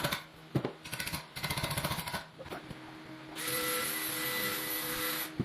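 Handheld power tool running in two spells: a rapid rattling for about two seconds, then a steady whine starting about three and a half seconds in and stopping just before the end.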